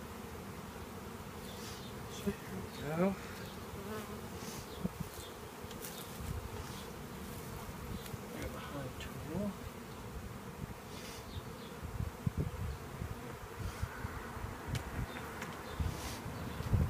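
Swarm of honeybees buzzing around an open package and hive box. Now and then a single bee passes close, its buzz sliding in pitch, and there are a few low bumps near the end.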